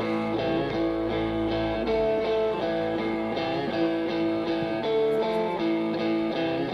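Live rock band playing, an electric guitar strumming a repeating rhythmic chord pattern. The deep bass drops out about two seconds in.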